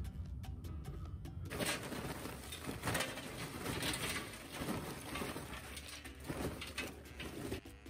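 Lump charcoal poured from a paper bag into a metal chimney starter, chunks clattering against the tin and each other. It starts about a second and a half in and stops just before the end, over quiet background music.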